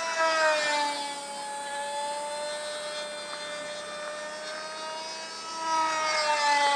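Foam-board RC pylon-racer model airplane flying past, its motor and propeller making a steady droning whine. It comes close twice, once just after the start and again about six seconds in, and each time its pitch drops as it goes by.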